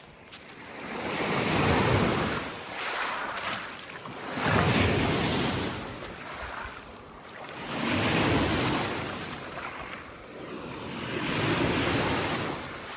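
Lake Superior waves washing onto a rocky beach, with four swells of surf a few seconds apart. Wind buffets the microphone.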